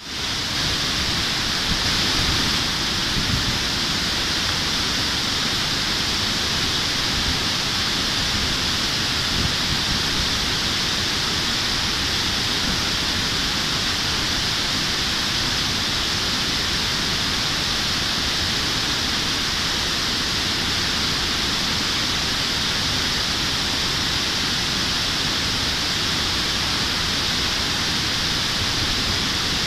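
Steady rush of a mountain stream pouring over a sloping concrete weir into white-water rapids: an even, unbroken hiss with a low rumble underneath.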